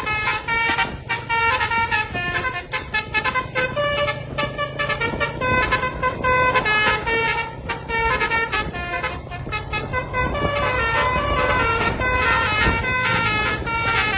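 Telolet basuri multi-tone horn on a tour bus playing a fast tune of short stepped notes, several tones sounding together, over a steady low hum.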